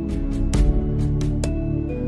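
Background music: sustained chords over a steady beat of sharp percussion strikes, about four a second.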